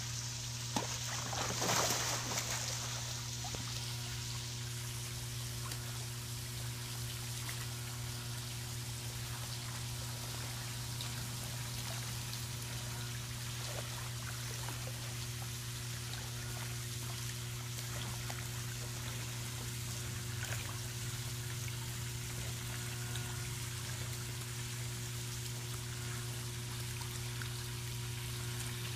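Water splashing and trickling steadily into a swimming pool from a spray jet, over a steady low hum. About two seconds in comes a louder splash, as the dog leaps from the pool edge onto a floating boogie board.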